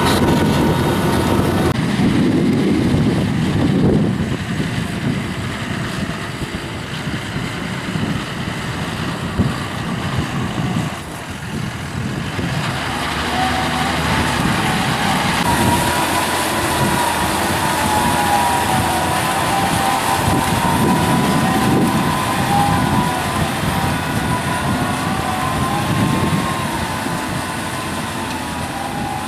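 John Deere 6140R tractor's diesel engine running hard under the load of a five-furrow Kverneland plough turning heavy wet soil. A high whine wavers in pitch above the engine noise, most plainly in the second half.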